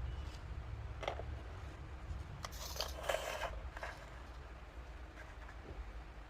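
Plastic toy pieces and packaging being handled: a click about a second in, then a crinkling rustle for about a second, over a low steady hum.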